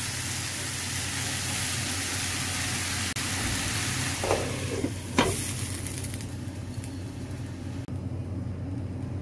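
Sliced onions, tomatoes and green chillies sizzling in oil in a nonstick pan as they are stirred with a wooden spatula, with a single knock about five seconds in. The sizzle softens near the end, by which point the pan is covered with a glass lid.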